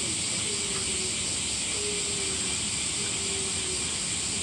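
Steady high-pitched drone of a summer cicada chorus.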